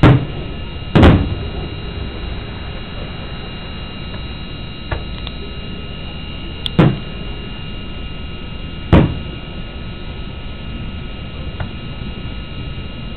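Fireworks shells bursting with deep booms: four loud ones a few seconds apart (two in the first second, then about 7 and 9 seconds in) and two fainter ones between. A steady hum runs underneath.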